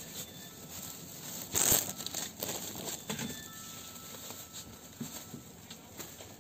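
Crinkling and rustling with scattered light clicks, with one loud rustle about a second and a half in.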